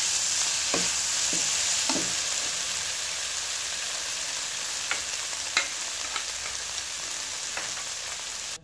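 Shredded chicken sizzling in oil in a wok, a steady hiss, with a few sharp taps and scrapes of the perforated metal spatula against the pan as it is stirred.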